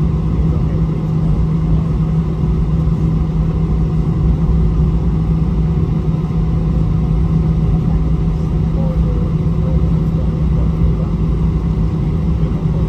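Airbus A320-216 cabin noise while taxiing, heard from inside the cabin over the wing: the CFM56 engines running steadily at taxi power as an even low hum, with a rumble from the wheels rolling along the taxiway.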